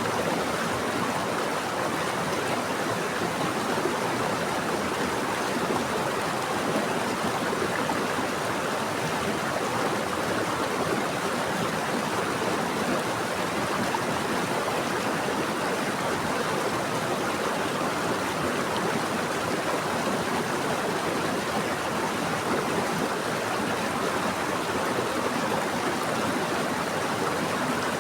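Running water flowing steadily over rocks in a stream, an even rushing noise with no breaks.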